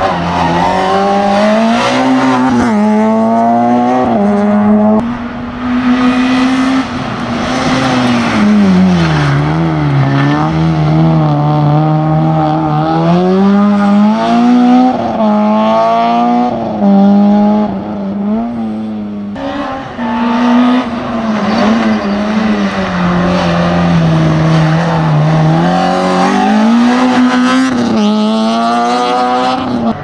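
Rally hatchback engines revving hard through cone chicanes, first a Peugeot 106: the engine note climbs and drops again and again as the drivers go on and off the throttle and change gear. About nineteen seconds in the note breaks off briefly and another car's engine carries on in the same way.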